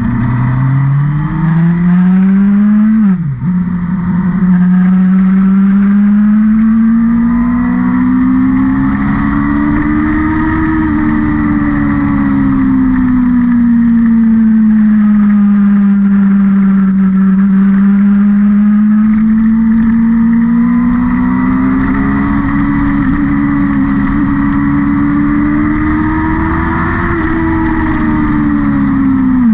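Vehicle engine under way on a race circuit, climbing in revs, then dropping sharply in pitch about three seconds in as it shifts gear. The engine note then rises and falls in long, slow swells as the speed changes through the track, with another sharp drop right at the end.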